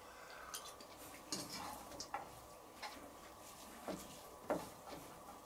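Faint, irregular clicks and scrapes of a metal fork against a wok while eating from it, about half a dozen small taps.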